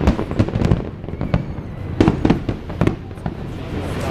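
Aerial fireworks bursting in quick, irregular bangs and crackles, one dense cluster in the first second and another, louder cluster about two seconds in.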